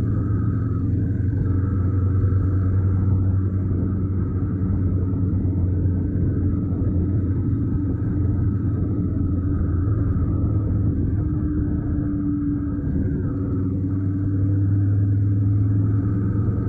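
Honda NC750X motorcycle's 745 cc parallel-twin engine running at a steady cruising speed, heard as a steady low rumble mixed with wind and road noise at a camera mounted by the front wheel.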